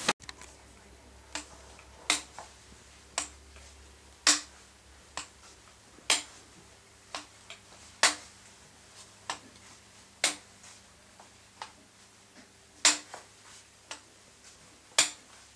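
Slow footsteps on a hard floor, sharp clicks coming roughly once a second with uneven spacing, over a faint steady hum.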